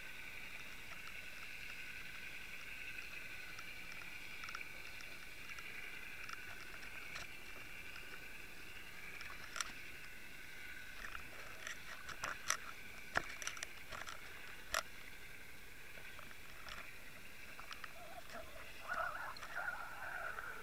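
Faint underwater noise heard through a camera beside a bucktail jig: a steady hiss with two steady tones, a run of sharp clicks and knocks in the middle, and a scraping noise near the end.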